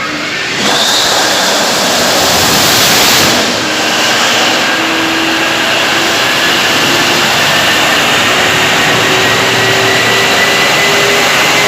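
Large standby generator's engine running loud and steady, jumping up in level under a second in, with its pitch climbing slowly as it comes up to speed.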